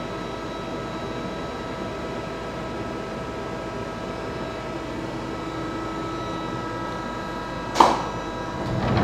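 Steady hum of a powered-up Emco CNC lathe and its phase converter, with several steady tones. Near the end comes one sharp clack as the machine's red sheet-metal enclosure door is handled.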